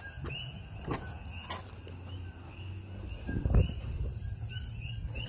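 Metal latch on a wooden gate being worked, with a sharp click about one and a half seconds in, then a few dull knocks as the gate is pushed and moved through. Repeated short chirping calls go on in the background, about two a second.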